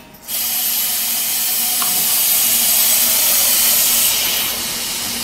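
Kitchen tap running, water pouring into a pot: a steady rushing hiss that starts suddenly and eases slightly about four seconds in.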